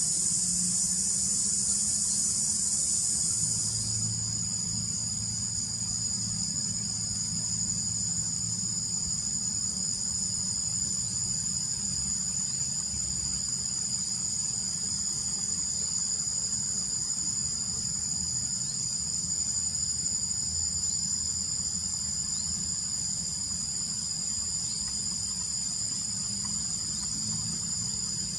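Insect chorus of crickets or similar insects trilling steadily at a high pitch, with several steady tones layered together. About four seconds in, a denser high hiss drops away and the steady trills remain. A faint low hum lies underneath.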